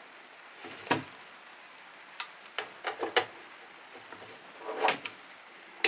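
Irregular metallic clicks and taps of a hand tool tightening down the bolts on a small Makita mitre saw, a handful of separate clicks spread over several seconds.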